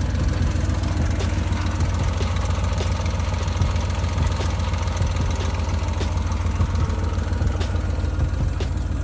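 Car engine running with a steady knock, the sign of a bad rod bearing (rod knock).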